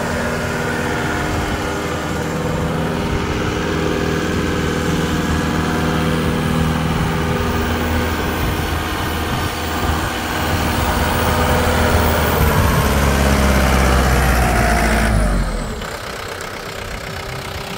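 John Deere 4720 compact tractor's four-cylinder diesel engine running steadily as the tractor drives, swelling a little before dropping abruptly to a quieter, lower level about fifteen seconds in.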